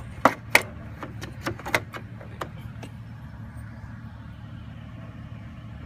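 A run of sharp clicks and light knocks, about eight in the first two and a half seconds, over a steady low hum that then carries on alone.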